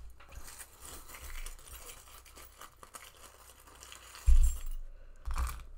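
Small charms clinking and rustling as they are picked through by hand, followed by two low thumps about a second apart near the end.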